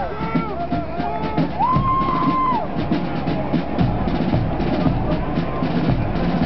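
Military marching band playing: the brass finishes a phrase with one held note about two seconds in, then the drums carry on alone with rapid strokes and bass drum beats.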